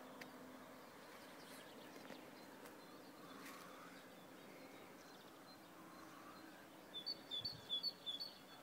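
Quiet outdoor background, then near the end a songbird gives a quick run of short high chirps, two notes alternating about five times.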